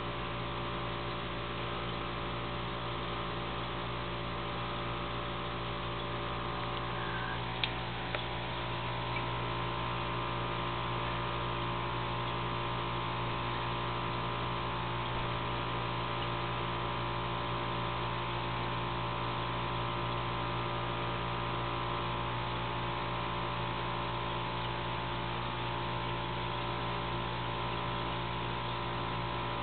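Steady electrical hum from running aquarium equipment, several fixed pitches at once, with two faint clicks about eight seconds in.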